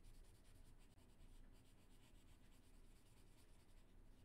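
Faint scratching of a light blue wax crayon colouring on paper, in quick repeated back-and-forth strokes.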